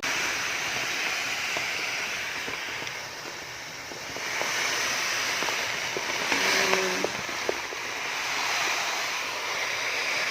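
Cat litter granules poured into a litter basin, a steady rushing hiss that eases off a few seconds in and then picks up again, with a few light clicks of granules.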